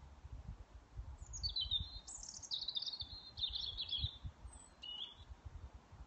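Blackbird calling at dusk: a rapid, high chattering phrase begins about a second in and runs for about three seconds, with a short call near the end. Low rumbling thumps on the microphone run underneath.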